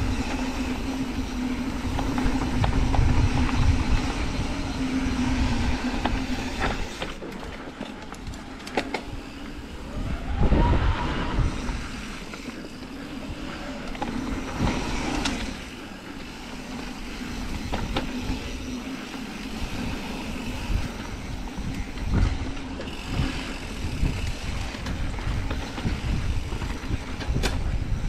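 Mountain bike ridden fast down a dry dirt singletrack: wind rushing over the microphone and tyres rumbling over the dirt, with scattered clicks and knocks of the chain and frame rattling over bumps. A brief rising and falling whine comes about ten seconds in.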